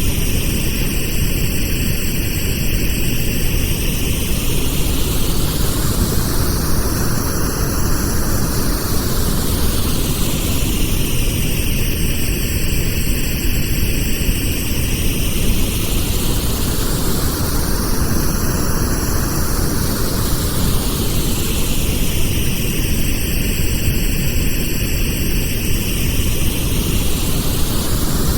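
Steady pink noise for masking tinnitus, with a slow whooshing sweep that rises and falls about every five and a half seconds.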